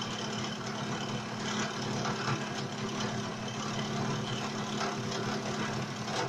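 Drill press motor running steadily as its bit cuts into a wooden board on a homemade three-axis CNC table, a constant hum with a rough cutting noise over it and a few brief scrapes.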